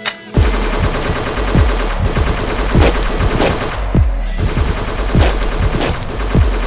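Recorded gunfire in a video-art soundtrack played loudly through hall speakers. It starts abruptly about a third of a second in as a dense rattle with heavy shots every half second to a second over a deep rumble.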